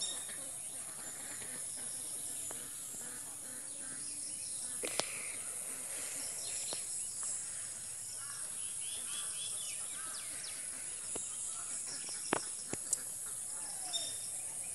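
Rural waterside ambience: a steady high insect drone with scattered bird chirps, broken by a few sharp clicks, two of them close together about three-quarters of the way through.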